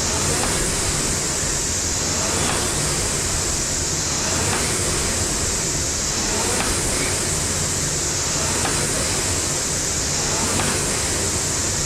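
Air-resistance rowing machine, a Concept2 copy, with its flywheel fan whooshing steadily and swelling with each stroke about every two seconds, with light clicks on each stroke.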